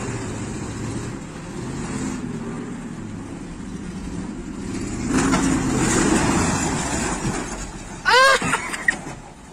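ZIL-130 truck's engine running and revving under load, louder about five seconds in. About eight seconds in there is a loud, brief squeal with falling pitch, repeated quickly a few times.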